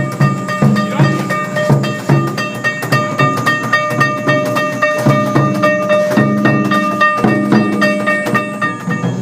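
Yamakasa festival drumming with taiko and metallic gong strikes, a steady beat about two a second. Over it a railway level-crossing warning bell rings steadily and stops near the end.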